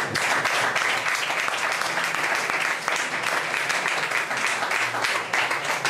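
Audience applauding: many hands clapping at an even, sustained level.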